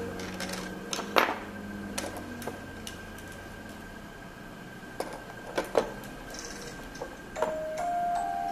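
Scattered light knocks and clicks as an RC boat hull with its metal stern bracket is handled and set down on a table, over a faint steady high tone. Near the end a sustained note of background music comes in.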